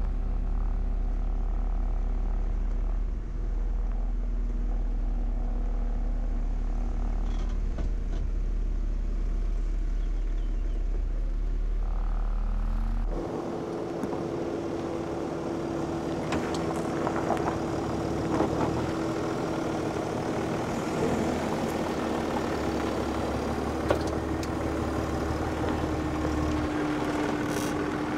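Mercedes G350 engine running at low revs as the SUV crawls along a gravel off-road track. About 13 seconds in, the sound changes sharply to a steadier, higher drone, with gravel crackling and clicking under the tyres.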